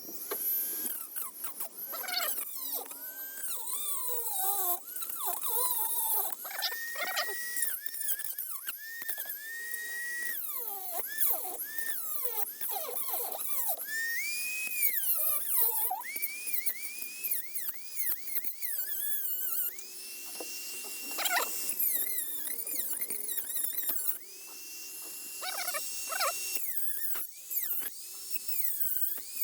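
Dremel rotary tool with a cutoff wheel cutting into a stuck macerator hose fitting. Its high whine keeps dipping in pitch as the wheel bites and climbing back as it frees up, with a few stretches of steady free-running whine.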